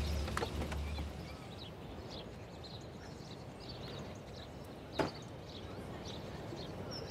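A car engine's low rumble fades out in the first second, then small birds chirp over a quiet background, with one sharp click about five seconds in.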